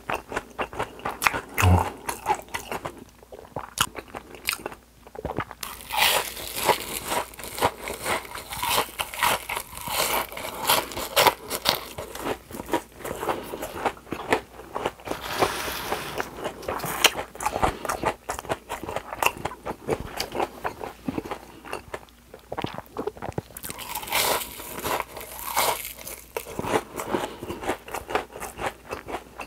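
Close-miked chewing of crunchy panko-breaded fried shrimp: a dense run of crackling crunches that comes in louder stretches between quieter chewing.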